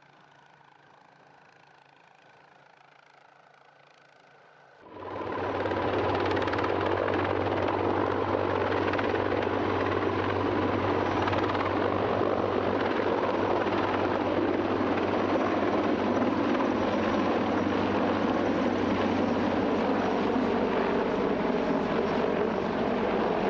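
Mi-26 heavy-lift helicopter's turbine engines and rotor running loudly and steadily. The sound cuts in suddenly about five seconds in, after a faint steady hum.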